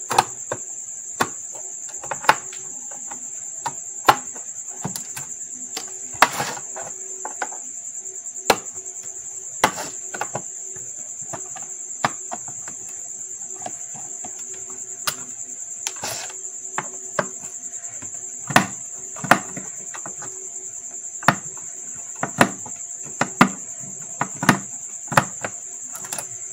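Sharp, irregular clicks and knocks of a screwdriver and screws against the sheet-metal case of a Hikvision four-channel DVR as its cover screws are undone, more frequent in the second half. Under them runs a steady high-pitched whine.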